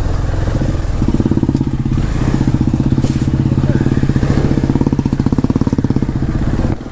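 A 250 cc KTM Duke's single-cylinder engine pulling at low speed over a rough dirt track. The throttle opens about a second in, holds steady, then closes near the end.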